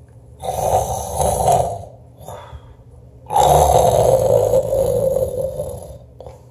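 A person snoring on cue: two snores, the first about a second and a half long and the second, a couple of seconds later, nearly three seconds long.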